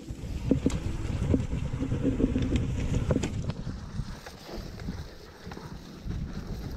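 Enduro mountain bike riding downhill on a leaf-covered dirt trail: tyres rolling over dirt and leaves with a low rumble, the bike rattling with many sharp knocks over bumps, and wind on the microphone. It is loudest for the first few seconds, then eases off.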